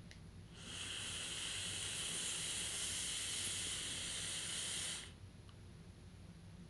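Steady hiss of breath forced through an electronic dab pen's mouthpiece and hot chamber, lasting about four seconds and cutting off sharply: reclaim being blown out of the pen to clear it.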